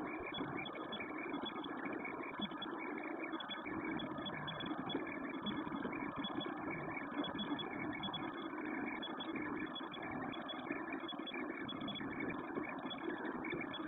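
An FDM 3D printer running a print: stepper motors and fans make a steady mechanical hum, with a flickering, stuttering whine that shifts as the print head moves.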